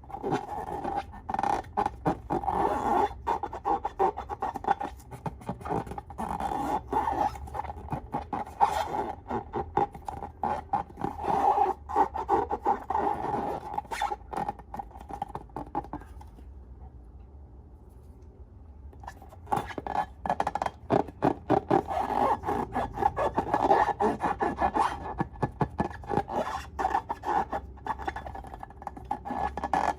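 Slime being worked by hand or stirred: dense runs of sticky clicks and pops over a scraping rub. There is a pause of about three seconds past the middle.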